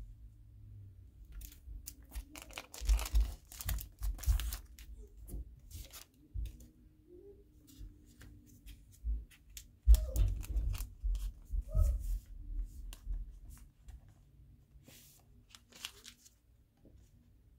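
Blind-pack wrapper of a random bromide photo print being torn open and crinkled by hand. The crackling and rustling come in two spells, about two seconds in and again about ten seconds in, with lighter handling clicks between and little after.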